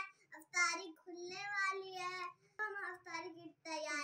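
A child singing in a high voice, holding notes in short phrases broken by brief pauses.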